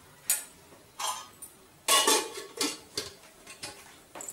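Metal kitchen utensils clinking and clattering about six times, short sharp knocks with a brief ring, the loudest about two seconds in.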